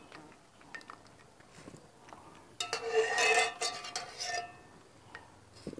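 Wire spider skimmer scraping and clinking against an aluminium pot as blanched potato sticks are scooped out of the water. A few faint clicks at first, then a louder stretch of scraping from about halfway, and a single click near the end.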